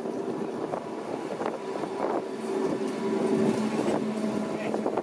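The steam rotary snowplow Xrotd 9213 and its locomotive running on the line as they approach: a steady mechanical rumble with a low hum that grows louder about three seconds in.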